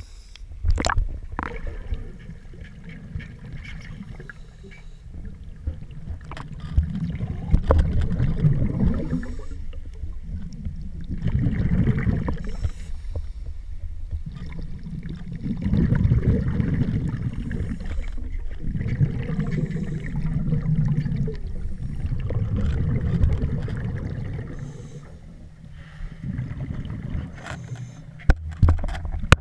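Scuba diver breathing through a regulator, heard underwater: low, muffled bursts of exhaled bubbles that swell and fade every three to four seconds.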